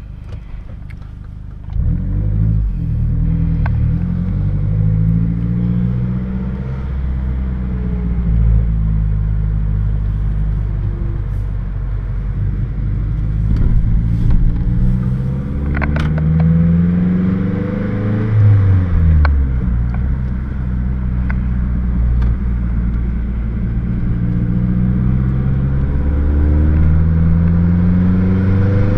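A car's engine and newly fitted aftermarket exhaust heard from inside the cabin while driving. It pulls away about two seconds in, then repeatedly rises in pitch under acceleration and drops back, with no drone in the cabin.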